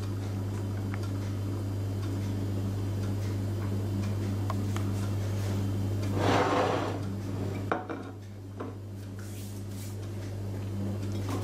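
Steady low hum with handling noise: a rustle about two-thirds of the way through, then a sharp knock as a small ceramic plate holding a pastry is set down on the table, followed by a few light clicks.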